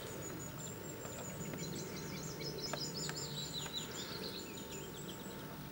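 A small songbird singing a run of quick, swooping high notes from about a second and a half in until about four and a half seconds, over a quiet outdoor background with a faint steady high whine.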